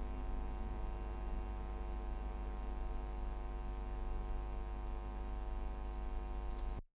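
Steady electrical mains hum with a buzzy stack of overtones, no other sound over it, cutting off suddenly to silence near the end.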